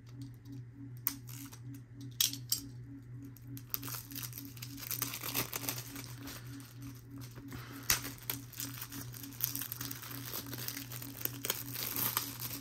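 Plastic shrink wrap on a Blu-ray case being cut open and peeled off by hand, crinkling and tearing. There are a few sharp clicks in the first three seconds, and the crinkling runs thick from about four seconds in.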